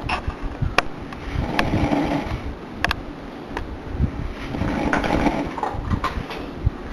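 A woman snoring loudly, one rattling snore swelling and fading about every two and a half to three seconds, with a few sharp clicks between the snores.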